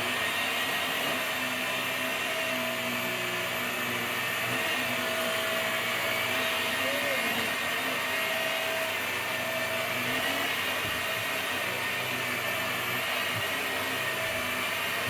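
Mains vacuum cleaner running steadily at full power, its motor whine holding a near-constant pitch with slight wavers as it is pushed over the floor.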